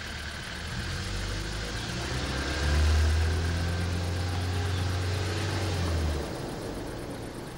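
Open-top jeep's engine running with a steady low hum, louder for about three seconds in the middle, then easing back.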